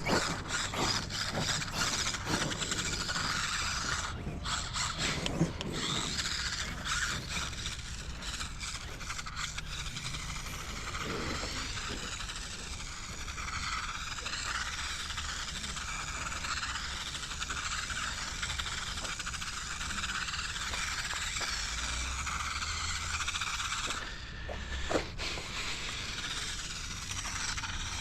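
Losi Micro B 1/24-scale RC car driving, its small brushed electric motor whining and rising and falling in pitch with the throttle, with the tyres scraping over rough ground. A few clicks and knocks come in the first seconds.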